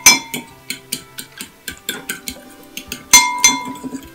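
Fork beating egg and milk in a glass bowl for an egg wash: quick, uneven clinks of the fork against the glass. Two louder ringing strikes come at the start and about three seconds in.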